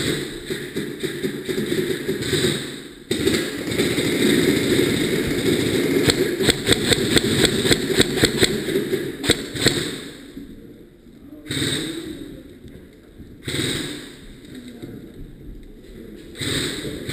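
Airsoft electric gun firing a quick string of sharp shots, clustered from about six to nine seconds in, over steady rustling noise.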